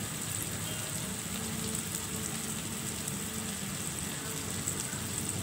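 Sliced onions, chillies and tomato sizzling steadily in oil in a wok.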